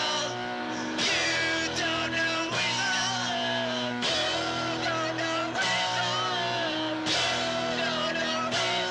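Punk rock song played by a three-piece band of electric guitar, bass and drums, with a sung lead vocal over held guitar chords, from a home demo cassette recorded in a basement.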